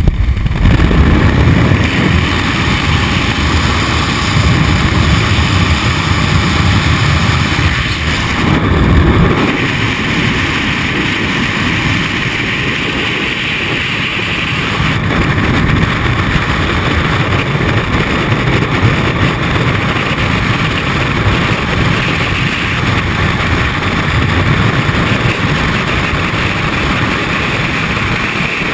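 Loud, steady rush of freefall wind buffeting a helmet-mounted camera's microphone, heavier and lower for the first nine seconds or so, then an even roar.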